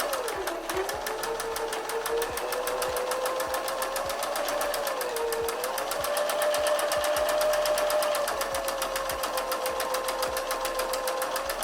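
Janome Sewist 500 heavy-duty sewing machine running steadily, the needle stitching in a rapid even clatter over the motor's whine, which dips in pitch briefly twice.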